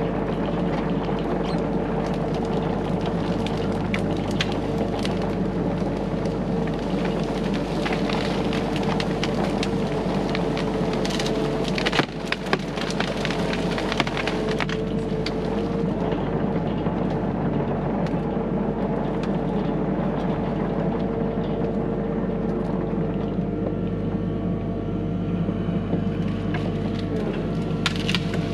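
Hyundai HX85A excavator running steadily under load, its engine and hydraulics holding one even tone, with scattered clicks and cracks throughout and one sharp loud crack about twelve seconds in.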